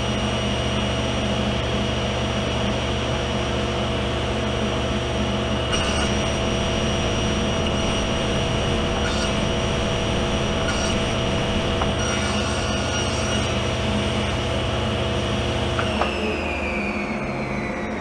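Delta Unisaw cabinet table saw running with its blade spinning while a dado is cut in several passes with a single blade, its sound shifting in the middle as the board goes through. About 16 s in the saw is switched off and its pitch falls steadily as the blade coasts down.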